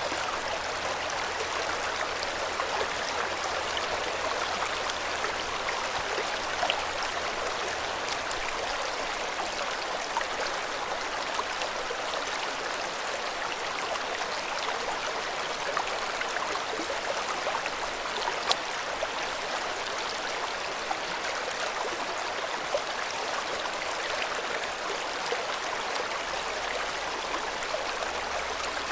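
River water flowing steadily over stones, an even rushing with small splashes and gurgles.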